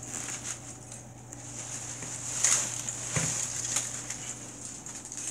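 A tubful of dry potato chips crackling and rustling as a body shifts among them: a string of light crunches, loudest about halfway through.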